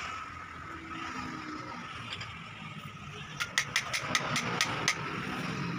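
A quick run of about nine sharp metallic clicks, roughly five a second, starting about three and a half seconds in, as the end of a Toyota Kijang steering rack and its tie rod are worked by hand. Under it runs a steady engine-like hum with a thin steady whine.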